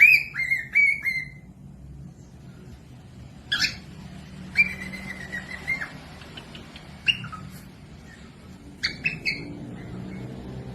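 Cockatiel whistling and calling: a quick run of short up-and-down whistled notes at the start, then scattered sharp chirps and one held whistle lasting about a second.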